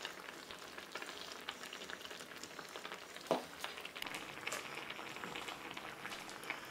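Cream sauce with spinach and cherry tomatoes sizzling and bubbling in a frying pan around salmon fillets: a steady crackle with many small pops. About three seconds in comes one short, louder scrape that rises in pitch.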